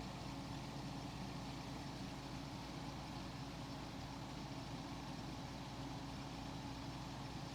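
Capehart 40-pint dehumidifier running steadily: the fan's air rush over a low, even hum from its Embraco refrigeration compressor, which is barely audible. The unit is working normally, its coil cold and the front blowing warm air.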